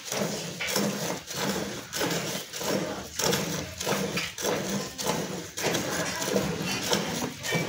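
Hand milking a cow: milk squirts from the teats into a metal pail, a spurt with each pull, about two a second.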